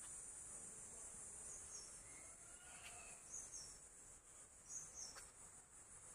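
Near silence with a faint, steady, high-pitched insect drone, like crickets, and a few soft high chirps.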